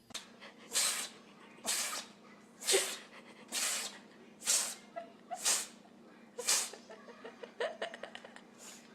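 An animal's short, breathy snorts, about one a second, with a few small clicks near the end.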